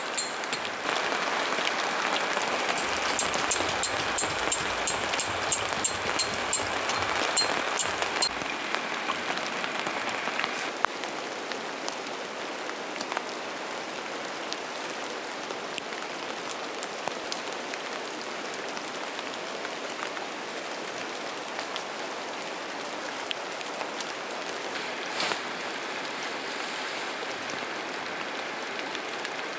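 Steady rain falling, with many sharp ticks over roughly the first eight seconds; after about ten seconds it settles into a quieter, even hiss.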